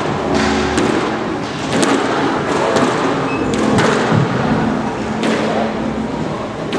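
Squash ball hit back and forth with racquets, cracking off the strings and the front wall about once a second, over the steady background noise of the court hall. The hits stop about five seconds in.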